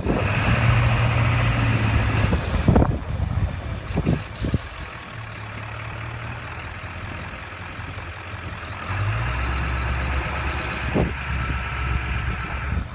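Motor vehicle engine idling with a steady low hum that drops in level about three seconds in and rises again about nine seconds in, with a few short knocks.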